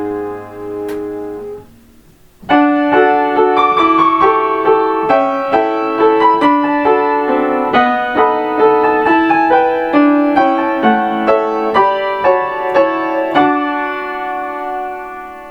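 Solo piano playing Kintetsu limited express onboard chime melodies, transcribed by ear. A held chord from one chime fades out, and after a short pause a new chime tune starts about two and a half seconds in. That tune is a run of short notes ending on a held chord that fades near the end.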